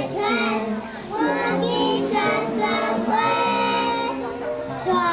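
A group of young children singing a Taiwanese folk song together over steady musical accompaniment.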